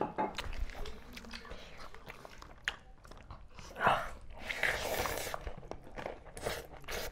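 Close-up eating sounds of pork curry and rice eaten by hand: biting and chewing, with wet clicks and smacks. A louder stretch of chewing comes about four to five seconds in.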